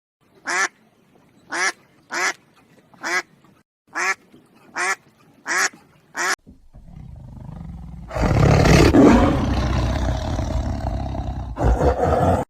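A duck quacking eight times in short separate quacks, followed by a loud, rough roar from a large animal that lasts about four seconds and swells up from a quieter start.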